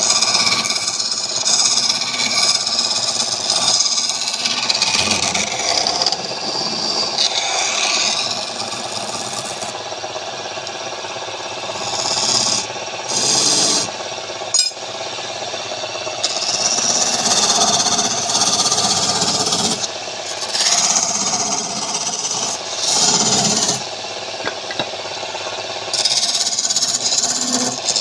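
Woodturning: a tool cutting and scraping wood on a lathe, in passes that swell and drop every few seconds, with one sharp click about halfway through.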